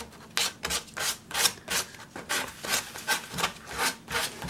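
Abrasive paper on a foam sanding block rubbed back and forth by hand over carved wood, in short rasping strokes about three a second.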